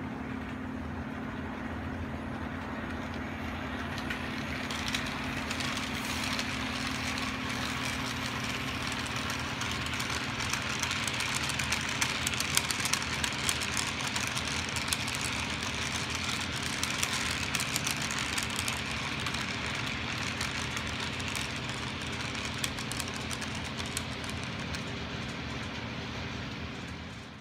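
HO-scale model freight train of hopper cars rolling past: a continuous rattling rumble of small wheels on the track, with many quick clicks that grow busier about four seconds in as the cars pass close. Under it runs a steady low hum.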